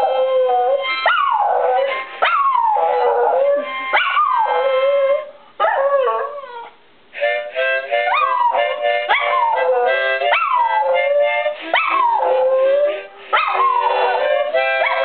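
Miniature schnauzer howling: a run of drawn-out howls, each sliding down in pitch, with a short break about six to seven seconds in. Music with long held notes plays under the howls.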